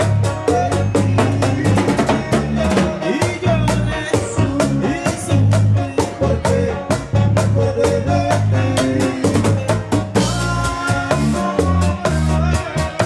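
Live band music: acoustic guitars and keyboard over a steady bass line and drums playing a fast, busy rhythm of snare and rim hits.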